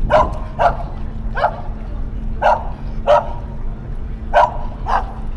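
A dog barking, seven short barks at uneven intervals, over a steady low hum.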